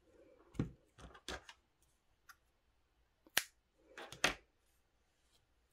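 A crocheted wool scarf being handled while a yarn end is worked through its stitches with a large needle: soft rustling of the yarn and fabric with a scatter of sharp clicks and taps, the sharpest a little past three seconds in.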